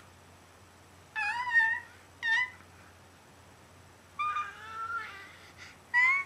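A baby's high-pitched squeals: four short pitched cries with bending pitch, the third the longest at about a second.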